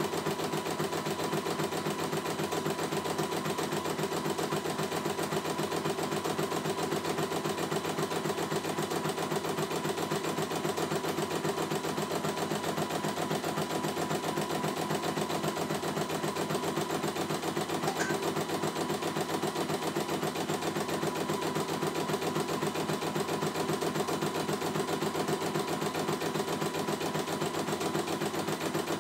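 CNY E900 computerized embroidery machine stitching out a design, its needle running in a fast, even run of strokes without pause.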